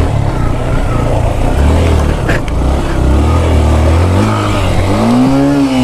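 Motorcycle engine running as the bike rides off, a steady low drone under heavy noise. Near the end the engine pitch rises and then falls.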